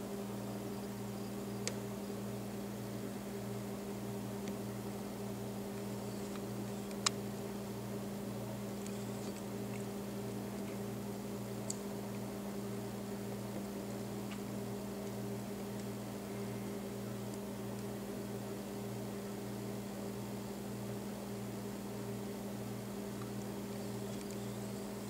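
Steady mechanical hum with a low, evenly pulsing drone and a few faint clicks, the sharpest about seven seconds in.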